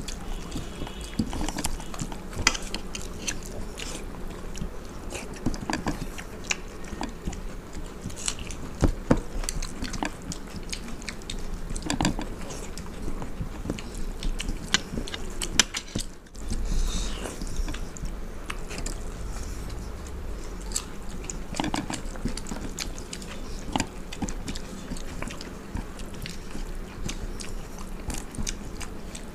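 Close-miked chewing and biting of two people eating watery rice (panta bhat), with frequent short wet clicks and crackles and the squish of fingers mixing the soaked rice on steel plates. A brief low thud a little past halfway.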